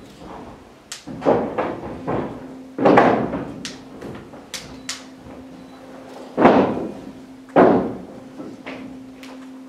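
Cardboard boxes being put down and knocked on a stage floor: several irregular dull thuds with a few sharper clicks in between. A steady low hum sets in about two seconds in and runs under them.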